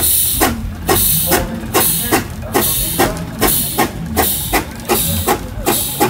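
Fowler steam ploughing engine working hard as it winches, its exhaust chuffing in a steady, even beat of a little over two a second over a low mechanical rumble.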